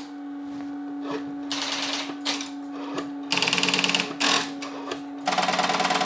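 Rotary-dial telephone being dialled: a steady low dial tone from the lifted handset, broken several times by short runs of rapid clicking as the dial spins back after each digit.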